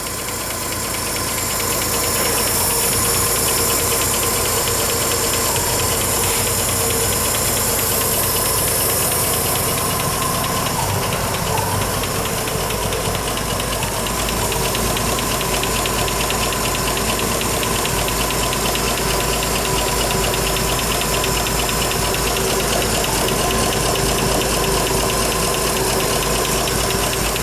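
A 235 cubic inch Chevrolet straight-six with twin carburetors idling steadily and smoothly, with its engine-driven cooling fan spinning.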